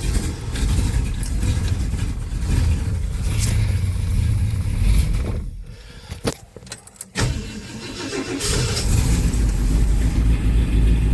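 1965 Ford Thunderbird's 390 V8 being started. It turns over for about five seconds and goes quiet briefly with a few clicks. Then it turns over again, catches, and keeps running steadily.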